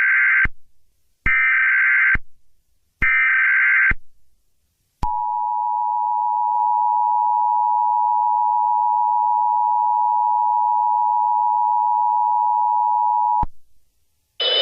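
Emergency Alert System SAME header: short bursts of warbling digital data tones, three in all, each just under a second, the first already under way. They are followed by the EAS two-tone attention signal, held steady for about eight seconds and cut off sharply.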